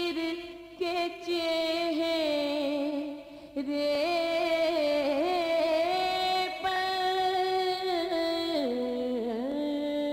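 A woman singing a noha (Shia lament) solo, holding long drawn-out notes that waver and step up and down in pitch, with a brief pause for breath about three and a half seconds in.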